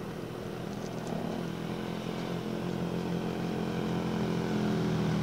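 Motorcycle engine running at a steady pitch, slowly growing louder.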